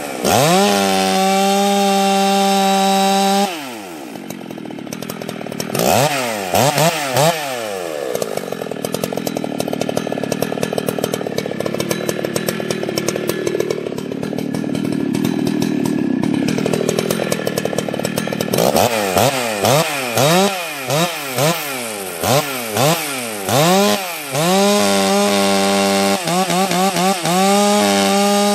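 Husqvarna 61 two-stroke chainsaw with a 24-inch bar and chain, revved up to a high held note, then cutting into wood with the engine pulled down and wavering under load for about ten seconds. Near the end it is revved up and let drop several times in quick succession.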